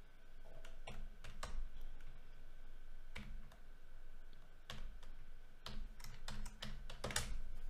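Computer keyboard typing: keys clicking in short, uneven runs of keystrokes.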